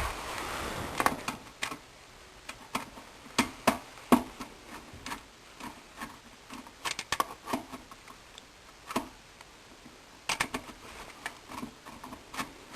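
Irregular light clicks and knocks of hand tools and parts being handled, with a brief rustle at the start.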